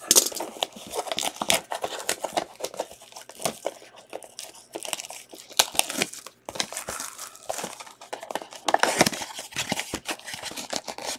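Clear cellophane shrink-wrap being torn and crinkled off a cardboard trading-card blaster box. The crackling is irregular throughout, with busier bursts at the start and again about nine seconds in.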